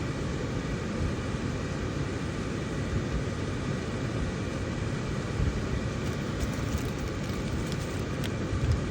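Steady low rushing noise of a car's ventilation blower running with the ignition on.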